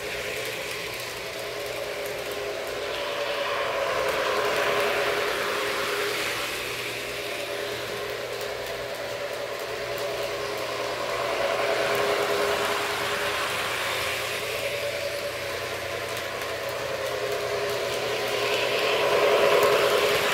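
Model Santa Fe diesel passenger train running around its track: a steady hum with wheel noise on the rails. The sound swells about every seven or eight seconds as the train passes close.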